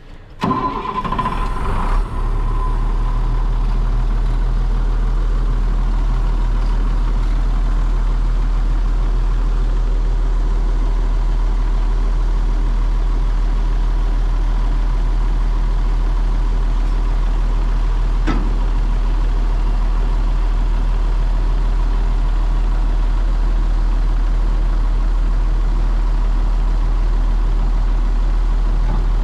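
An engine running steadily and close, starting up loud about half a second in, with a constant low hum and a faint steady whine.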